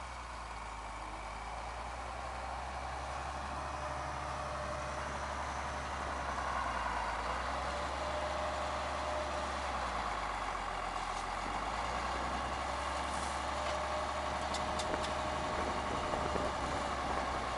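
International Harvester tractor engine running steadily and growing louder as the loader tractor brings a round bale close, with a higher whine that swells about six seconds in and again near the end. A few light clicks near the end.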